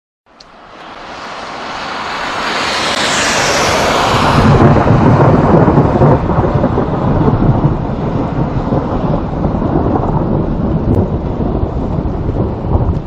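Thunder rolling: a rumble that swells over the first few seconds into a long, loud, deep roll that carries on without a break.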